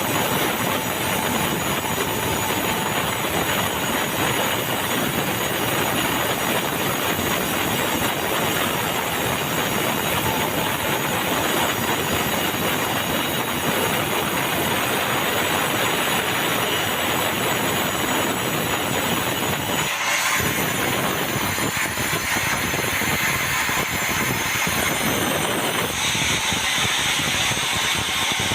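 Sawmill saw cutting meranti log into rafter stock, a loud, steady mechanical noise that changes character briefly about twenty seconds in and again near the end.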